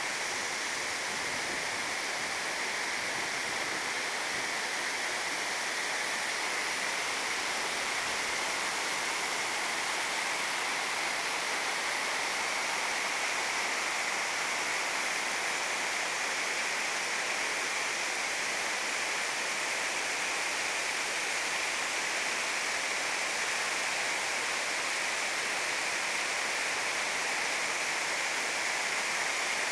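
Cascading waterfall, water tumbling down many small falls over moss-covered rock: a steady, unbroken rush.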